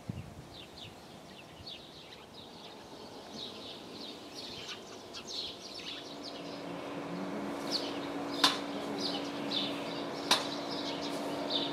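Small birds chirping in quick, repeated short calls over outdoor background noise. From about halfway a steady low tone grows louder beneath them, and two sharp clicks stand out near the end.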